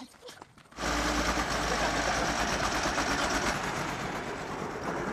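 A heavy vehicle's engine and rush of air as it passes close by, starting suddenly about a second in with a strong low rumble and easing off slightly after the middle.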